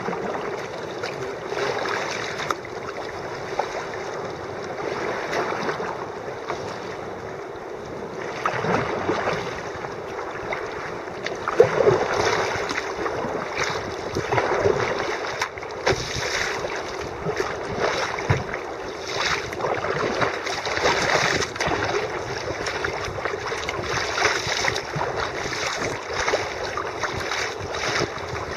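Choppy sea water sloshing and splashing against a sea kayak's hull, surging irregularly, with wind buffeting the microphone.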